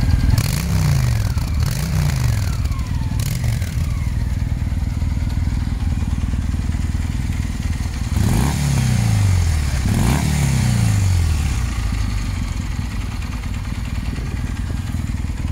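Two motorcycle engines idling, a Honda Shadow V-twin and a Kawasaki W650 parallel twin, with the throttle blipped through the exhausts so the riders can compare how loud each bike is. There are three short blips in the first few seconds, then two harder revs about 8 and 10 seconds in, each dropping back to idle.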